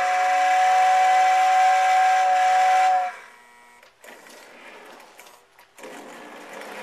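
Lionel model steam locomotive's whistle blowing one long, steady, breathy blast that cuts off about three seconds in. After a short lull, the train's running noise of motor and wheels on the track rises as it approaches.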